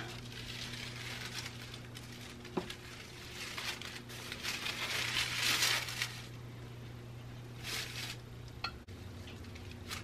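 Rustling and crinkling of a large sheet of nonwoven fusible interfacing as it is lifted, shaken out and spread over fabric pieces. It is loudest about five seconds in, with a couple of short crinkles near eight seconds.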